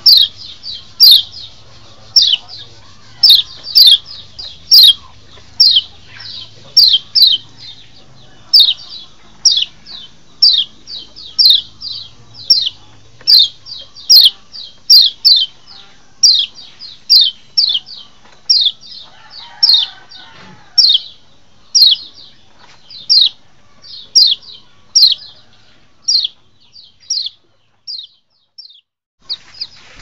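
White-eye (kecial) calling: a rapid run of short, high, down-slurred chirps, often in pairs, about two a second, thinning out with a brief pause near the end. The call is used as a lure (masteran) to draw wild kecial.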